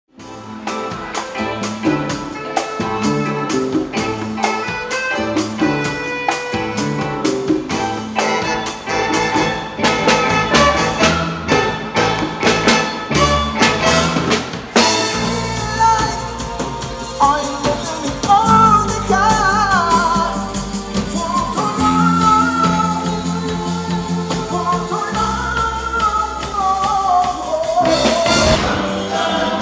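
Live Latin dance band playing. The first half is an instrumental passage of drum kit, percussion and keyboards with a quick, steady beat. About halfway through a male lead singer comes in over the band.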